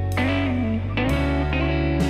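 Background music led by a plucked guitar, a new chord struck about once a second over a steady bass.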